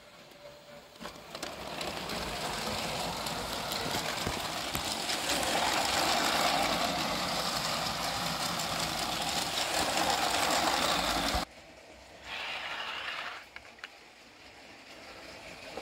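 LEGO train running along plastic LEGO track, its motor whirring and wheels rattling; the sound comes in about a second and a half in, grows louder, and stops suddenly about eleven seconds in, with a short burst of the same about a second later.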